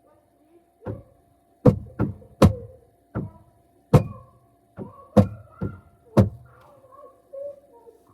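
Heard from inside a closed refrigerator: about ten dull, muffled thuds and knocks at uneven intervals over the fridge's steady hum, with faint muffled sounds from outside between them.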